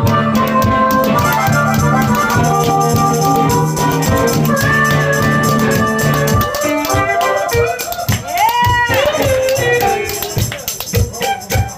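Spoons rattled in a fast, steady clicking rhythm against the player's knee and hand, over live band music. About six and a half seconds in, the low bass part drops out and bending notes take over.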